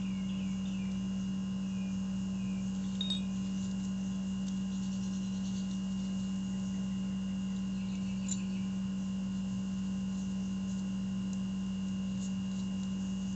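Steady low hum with a thin high whine above it, unchanging throughout, with a few faint light clicks.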